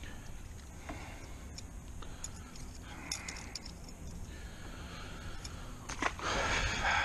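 Small clicks and rustles of a small northern pike being handled and unhooked from a lure by hand, over the side of a boat. About six seconds in, a sudden louder burst of noise lasts about a second.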